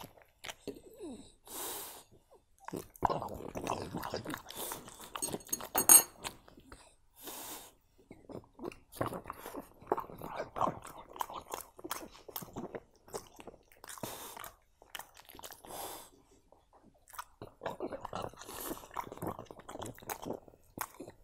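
French bulldog chewing food, a dog biscuit among it, in bouts of chewing with short pauses between, with a sharp click about six seconds in.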